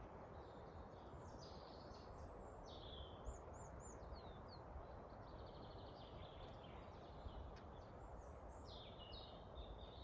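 Forest birds singing faintly: several birds trade rapid trills, chirps and quick falling whistles throughout, over a steady low rumble of wind.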